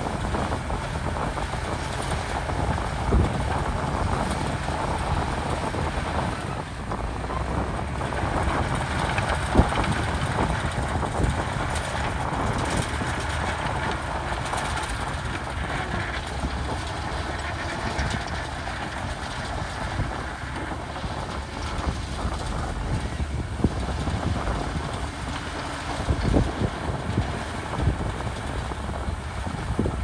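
Komatsu D61PX crawler bulldozer's diesel engine running steadily under load, with a few sharp clanks from the machine now and then.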